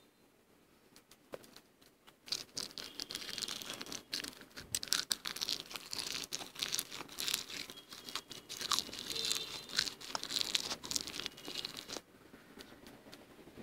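Soft freezer frost being crunched and chewed in the mouth: a dense crackle of many small crunches that starts about two seconds in and eases off near the end.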